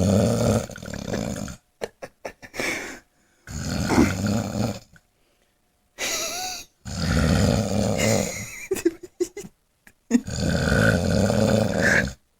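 Heavy snoring from a sleeping person: five long, loud snores with short quieter breaths between them.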